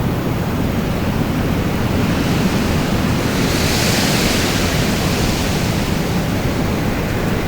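Wind blowing: a steady noise heavy in the low end, with a gust that swells higher about three and a half seconds in and eases off a second later.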